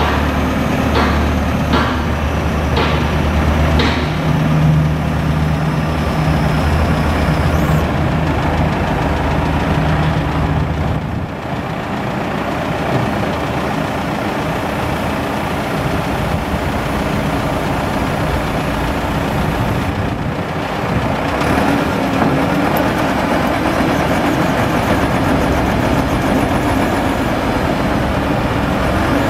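1989 Michigan L70 wheel loader's diesel engine running as the machine moves and works its raised bucket. A steady low hum for roughly the first ten seconds, with a few sharp clicks in the first four, then a rougher, noisier running.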